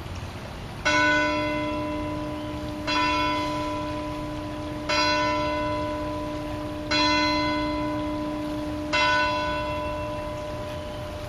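A large bell struck five times at the same pitch, evenly about two seconds apart, each stroke ringing on and fading as the next one lands.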